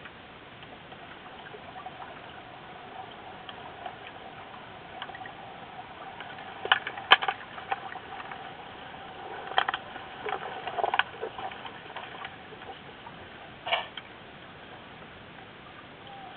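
Underwater hockey heard underwater: a steady water hiss and faint hum, with sharp clacks of sticks striking the puck and the tiled pool floor. The clacks come in a cluster about seven seconds in, again around ten to eleven seconds, and once near fourteen seconds.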